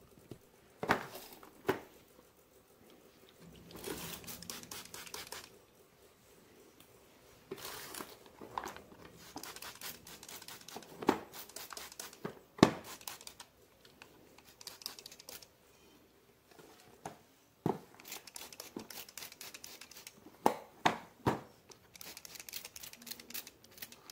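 Packaging being handled and opened: rustling and crinkling of plastic and tearing sounds, broken by scattered sharp clicks and knocks.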